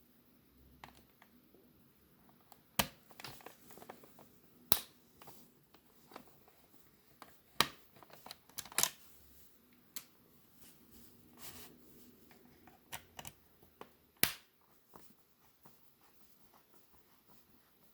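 Plastic VHS cassette shell and tape reels being handled by hand: scattered sharp clicks and taps, a dozen or so, spaced irregularly.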